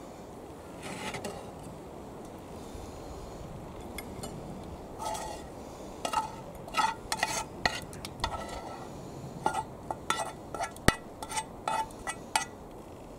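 A metal utensil scraping and clinking against a frying pan as steak and vegetables are scraped out onto a plate. There is quiet rubbing at first, then from about halfway through a quick run of sharp, ringing metal clinks.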